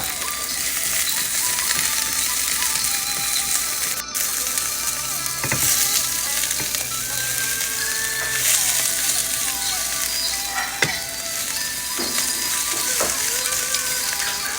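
Food sizzling in hot oil in a frying pan while it is stirred, with a few sharp clicks of the utensil against the pan.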